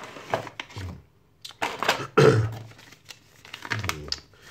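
Cardboard box and clear plastic blister tray of a toy drone's packaging being handled and pulled apart, with scraping, rustling and sharp plastic clicks; the loudest clatter comes a little past two seconds in, followed by a paper instruction manual being rustled.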